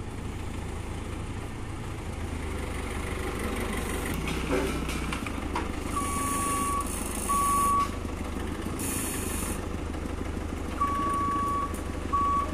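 Manitou telehandler's diesel engine running steadily as the machine manoeuvres, with its reversing alarm sounding four single-pitch beeps of uneven length in the second half. Two short bursts of hissing come around the middle.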